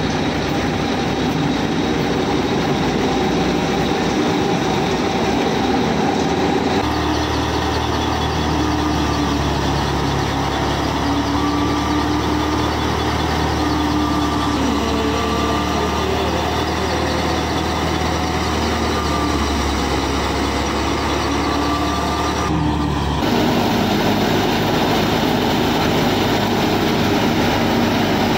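Miniature model thresher running steadily, driven through a shaft and belts by a model tractor's motor, with a steady hum and whine while wheat is threshed. The sound shifts abruptly about seven seconds in and again about twenty-three seconds in.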